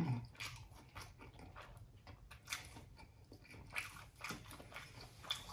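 Close-miked chewing of spicy noodles: soft, irregular wet mouth clicks.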